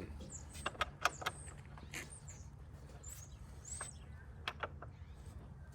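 Scattered sharp clicks and knocks from hand tools working the Model T's wheel and jack, several in quick succession about a second in and a few more later. Birds chirp briefly in the background.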